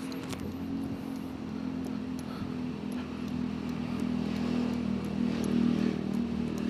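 A small vehicle engine running at a steady speed, getting somewhat louder in the second half, with a few light ticks and rattles over it.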